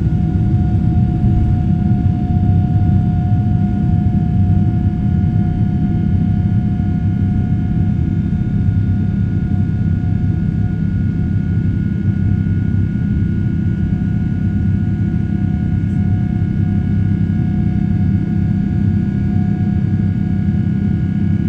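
Boeing 777-300ER's GE90-115B turbofan engines at takeoff thrust, heard from inside the cabin over the wing as the jet lifts off and climbs. It is a loud, steady low roar with thin, steady whining tones above it.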